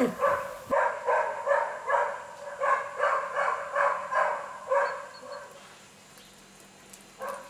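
A dog barking repeatedly, about three barks a second, stopping about five seconds in.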